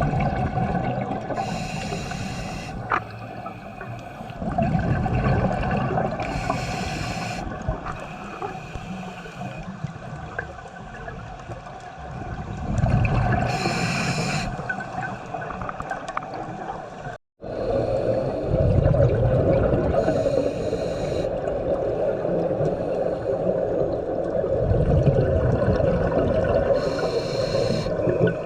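Scuba diver breathing through a regulator underwater: a regular cycle of breath hiss and bursts of exhaled bubbles, repeating about every six to seven seconds.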